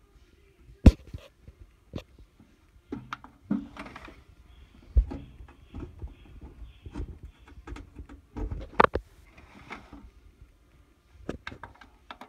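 Irregular clicks, knocks and rustling from handling the equipment and the camera, with the sharpest knock about a second in and others near two, five and nine seconds.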